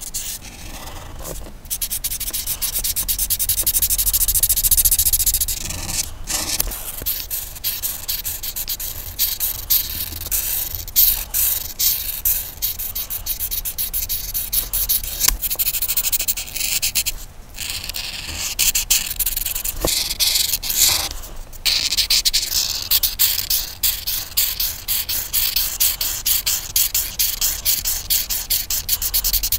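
Coloring in on a paper coloring page: a coloring tool scratching across paper in fast back-and-forth strokes, stopping briefly a few times.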